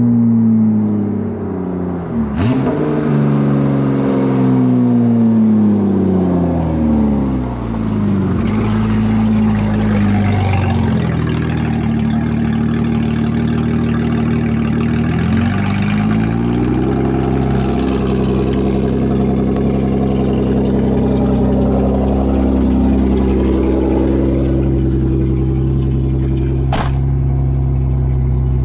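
1986 BMW 325e's 2.7-litre M20 inline-six running loud through an exhaust with its catalytic converter and mufflers removed. Its pitch falls and rises several times through revs and gear changes, then holds steady at a low idle for the last part.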